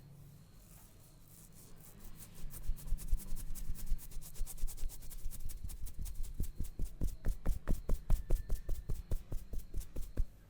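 Hands rapidly striking a person's head in an Indian head massage (champi), about seven strikes a second in an even rhythm. The strikes start about two seconds in and stop just before the end.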